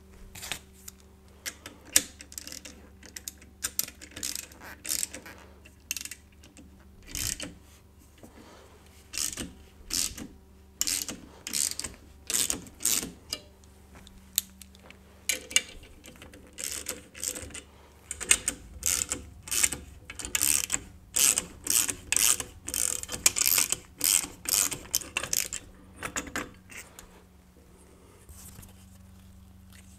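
Socket ratchet wrench clicking in repeated bursts as it turns the forcing screw of a gear puller, drawing the pulley off an old 1 HP Driver Line electric motor's shaft. The bursts stop near the end.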